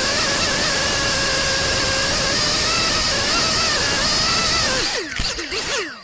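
FPV racing quadcopter's motors and propellers whining at high throttle, their pitch wavering slightly. About five seconds in the quad crashes into brush: the whine breaks up with clattering, then the motors wind down and stop.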